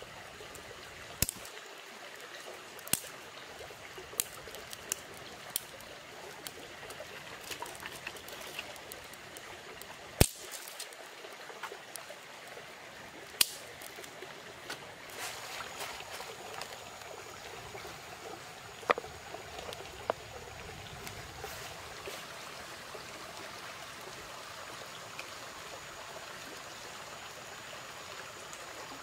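Small twig campfire crackling, with about a dozen irregular sharp snaps over a steady rushing hiss.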